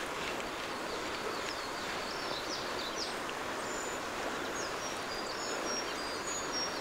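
River water rushing steadily, with many short, high bird chirps and whistles over it.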